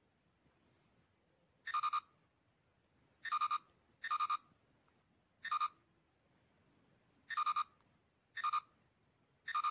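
Star Trek LCARS-style computer interface beeps, one short warbling chirp per screen tap, seven in all, spaced about one to two seconds apart.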